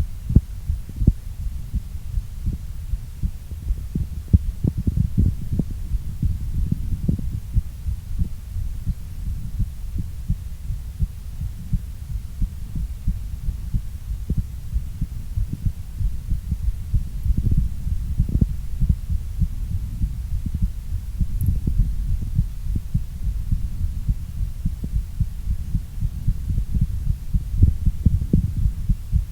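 Human heartbeat during exercise: a fast, regular low pulse over a steady low hum.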